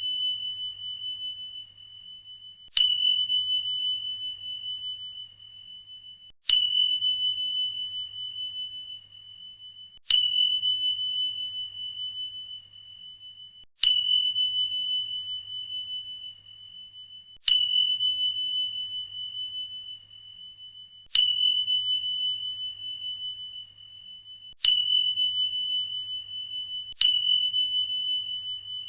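A high bell-like chime sound effect struck over and over, about every three and a half seconds and a little sooner near the end. Each strike rings out as a single pure tone that fades before the next.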